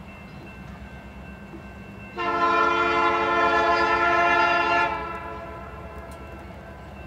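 Air horn of an approaching CN freight locomotive sounding one long blast of about two and a half seconds, starting about two seconds in. Under it is the steady low rumble of the oncoming train.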